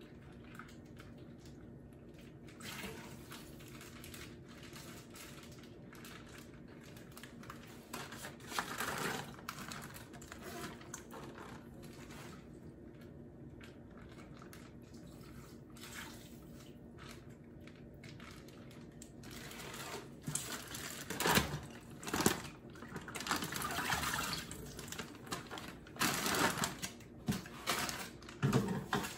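Chicken broth being poured and slid out of plastic zip-top bags into an Instant Pot's stainless inner pot: liquid splashing, with plastic bags crinkling and being handled. The crinkling and handling grow louder in the last third.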